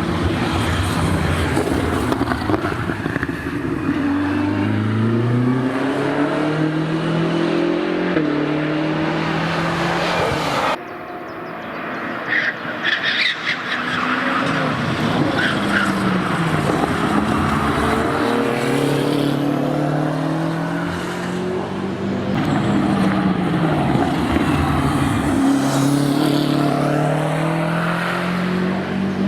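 BMW M6 GT3's 4.4-litre twin-turbo V8 race engine running hard, its pitch climbing and dropping again and again as the car accelerates through the gears and slows. The sound breaks off abruptly about a third of the way through and carries on.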